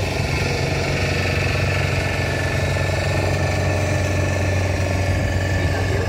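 An engine running steadily at idle, a constant low hum with no change in speed.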